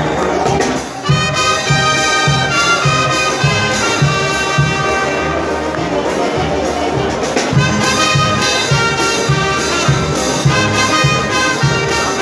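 Brass band playing a tune, with brass horns carrying changing notes over a steady beat of about two beats a second. The music dips briefly about a second in, then carries on.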